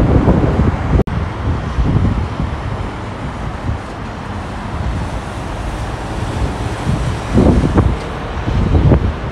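Steady roar of freeway traffic, the tyres and engines of many passing cars and trucks, with wind buffeting the microphone in low gusts, strongest about seven seconds in. The sound drops out for an instant about a second in.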